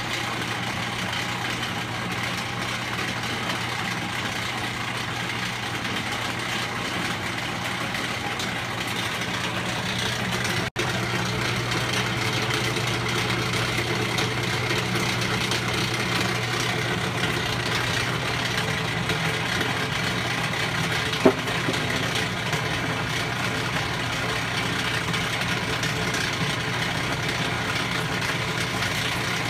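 Whirlpool LHW0050PQ washer running with a steady, horrible mechanical drone and hum, a fault that appeared suddenly and has left the washer not working properly. A single short click sounds about two thirds of the way through.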